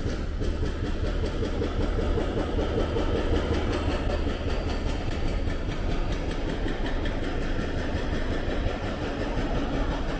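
Busy city street ambience: a steady low rumble of traffic engines under a constant wash of general street noise.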